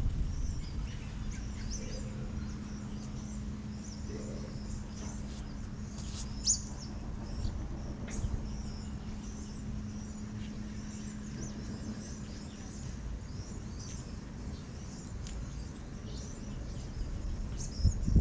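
Small birds chirping faintly and intermittently over a constant low rumble. A steady low hum runs through the middle, about two to twelve seconds in.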